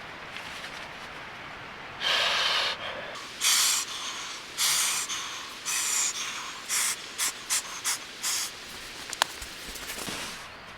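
A run of about ten airy puffs of breath starting about two seconds in, the first ones longest and the later ones short, ending with a small click.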